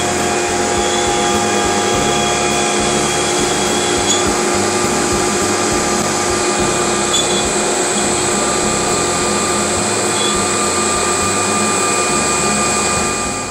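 CNC router spindle running and cutting wood molding, a steady high whine layered with several steady tones over a loud rushing noise of cutting and air.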